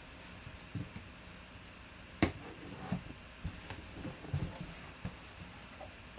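Cardboard shipping box being handled and turned over on a tabletop: scattered thumps and scuffs of cardboard, with one sharp knock about two seconds in.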